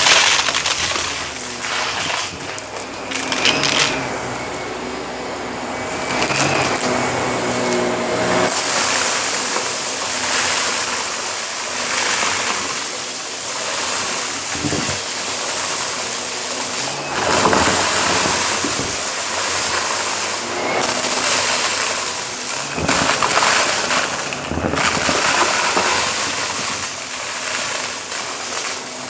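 Shark upright vacuum cleaner running over carpet, its motor hiss rising and falling as it is pushed back and forth. It crackles as it sucks up gritty debris. The hiss gets louder and brighter about eight seconds in.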